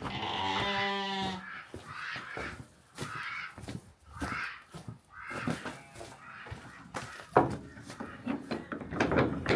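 A sheep bleating once: a long call with a wavering tone, about a second and a half. Scattered knocks and a few shorter, fainter calls follow.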